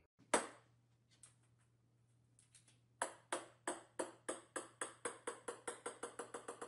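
Small plastic ball, like a ping-pong ball, bouncing on a hard wooden floor. One sharp hit comes near the start, then a few faint taps, then from about three seconds a long run of bounces that come quicker and quicker as the ball settles.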